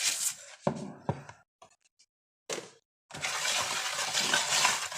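A few clinks and knocks of a utensil against a bowl, then, from about three seconds in, steady scraping of the baking soda and citric acid powder being stirred in the bowl.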